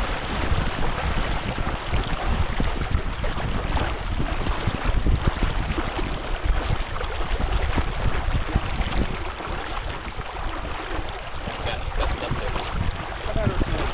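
Wind buffeting the microphone with a deep, gusting rumble, over the rush of water along the hull of a small sailboat under sail.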